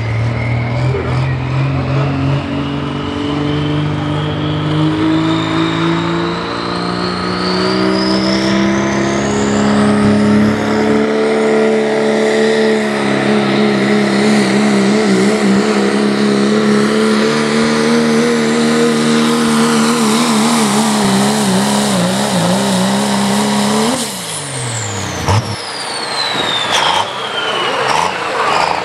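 Turbocharged diesel Dodge Ram four-wheel-drive pulling truck under full load on a pull. The engine climbs in pitch with a rising turbo whistle, then holds at high revs, the pitch wavering as the truck bogs and hops against the sled. About 24 s in the driver lets off, and the engine note drops while the turbo whistle winds down.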